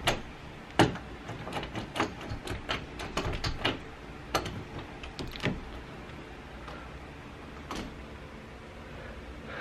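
A door being handled: a run of irregular clicks and knocks over the first five seconds or so, with one more near the end, then only faint room tone.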